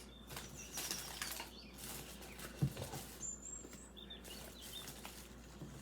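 Faint rustling and handling of small items and packaging, with a few light clicks and a soft knock a little under three seconds in.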